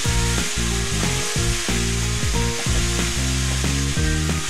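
New York strip steak and diced onions sizzling in a hot skillet as pats of butter go in, a steady hiss, with background music of quickly changing notes playing over it.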